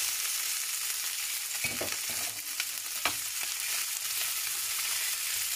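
Pieces of boiled chicken sizzling as they fry in a spoonful of oil in a pan, a steady hiss, with a couple of sharp knocks of a utensil against the pan about 1.7 and 3 seconds in.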